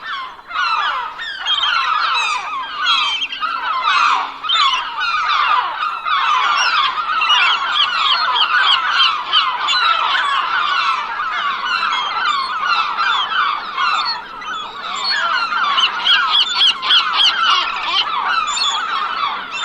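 A flock of gulls calling, with many short cries overlapping in a continuous clamour.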